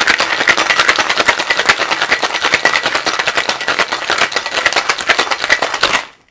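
Ice rattling hard inside a pair of metal cocktail shaker tins shaken vigorously, a fast, even rattle that stops just before the end. This is a citrus cocktail being shaken with ice to chill, dilute and froth it.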